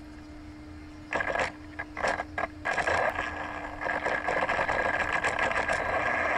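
WLtoys 104001 RC buggy's brushless electric motor and drivetrain whirring in a few short throttle blips about a second in. From about two and a half seconds in it runs continuously with a steady whine that grows louder as the car pulls away.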